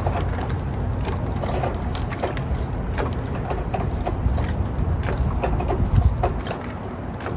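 A jack being pumped to lift the pickup truck, with short metallic clicks about once a second over a steady low rumble.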